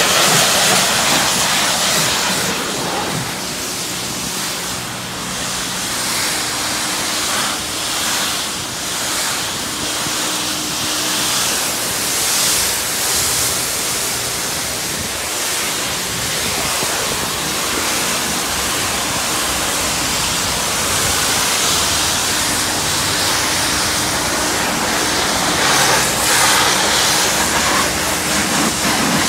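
A high-pressure car-wash wand sprays water against a car's bodywork, making a steady hiss that swells and eases slightly as the spray moves. A faint steady hum sits underneath.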